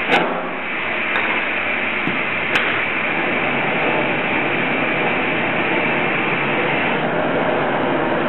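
Glassworking gas torch burning with a steady hiss. A few short clicks sound in the first three seconds.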